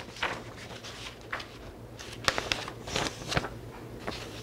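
Sheets of paper rustling and crackling in the hand, a string of irregular short crinkles, over a faint steady low hum.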